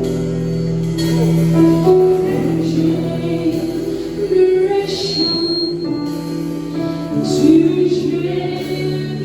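Gospel worship song: voices singing over a held instrumental backing.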